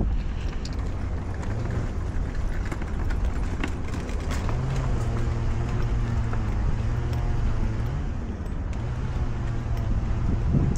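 An engine running with a steady low hum that grows stronger about four seconds in, dips briefly and returns, over a constant low rumble.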